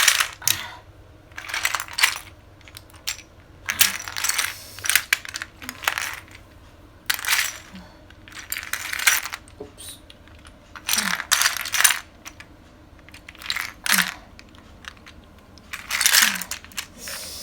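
Small plastic Lego bricks clattering and clicking against each other and the floor under bare feet, in bursts every second or two as each step lands and shifts the pile.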